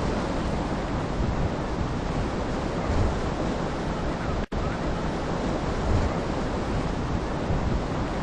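Ocean surf washing steadily, with wind buffeting the microphone. The sound cuts out completely for a split second about halfway through.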